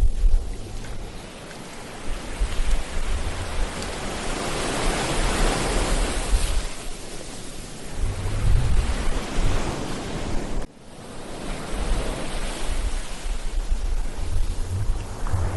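Ocean surf breaking and washing up a beach, one wash swelling and fading about a third of the way in, with gusts of wind rumbling on the microphone. The sound dips briefly and suddenly about two-thirds of the way through.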